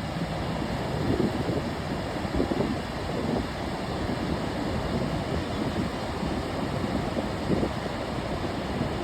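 Ocean surf washing in with a steady rushing noise, mixed with wind buffeting the microphone.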